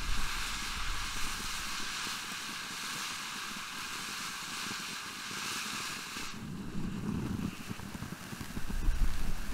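Red Rhino 'Nuts Please!' firework fountain burning with a steady spraying hiss. About six seconds in, the high hiss cuts off sharply as the fountain changes effect, leaving a softer, lower rush.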